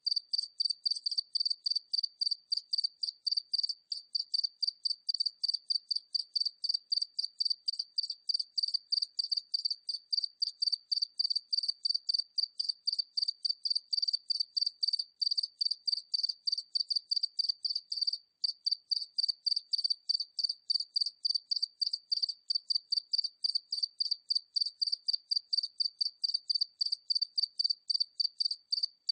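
A single cricket chirping at medium distance, in short high-pitched chirps repeated evenly at about three a second.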